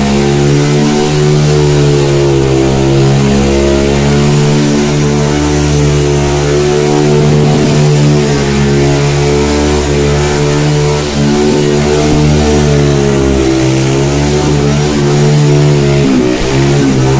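Honda FourTrax 300 ATV's single-cylinder four-stroke engine held on the throttle for a burnout, running loud and steady in pitch with small wavers and a brief dip near the end.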